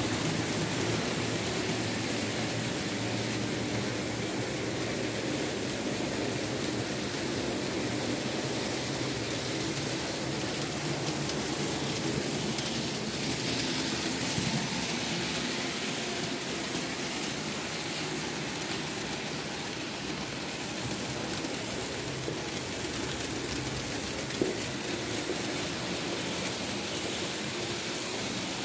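Märklin H0 model steam locomotive and wagons running on the track: a steady motor hum and wheel rumble, with one sharp click late on.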